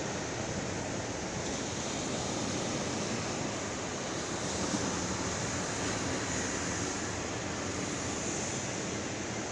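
Steady wash of small ocean surf breaking on the beach, with wind on the microphone.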